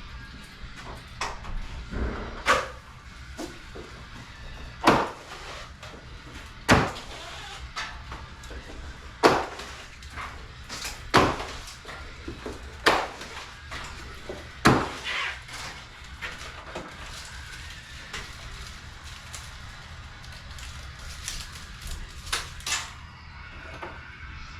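A series of sharp knocks or bangs, roughly one every two seconds, from installation work, with a few lighter taps near the end.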